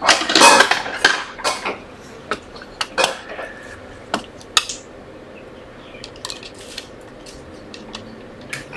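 Small metal repair tools clicking and clinking against an iPhone 7's metal parts while the logic board is being taken out. A bunch of louder clicks comes in the first two seconds, then scattered lighter ones.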